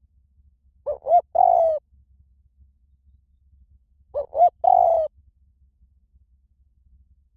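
Spotted dove cooing: two phrases about three seconds apart, each two short coos followed by a longer, falling coo. It is a lure call meant to make another spotted dove coo in reply.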